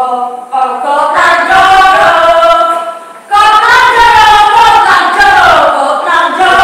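Several voices singing long held notes together without instruments, in two phrases with a short break about three seconds in.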